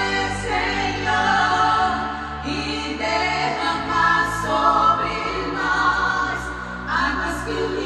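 Gospel song with sustained choir-like vocals over a steady instrumental backing.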